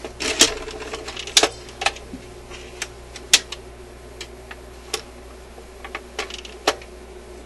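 Irregular clicks and rattles of the record changer mechanism of an Admiral suitcase record player as its tone arm and spindle parts are handled, with a low steady hum underneath.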